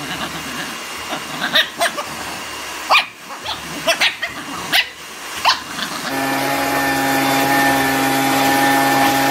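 A small white dog gives about six short, sharp barks over several seconds. About six seconds in, a steady motor hum starts abruptly.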